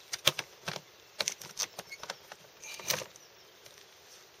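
Black plastic tool chest's catches being snapped open and its lid handled: a string of sharp plastic clicks and knocks, loudest about a third of a second in and again near three seconds.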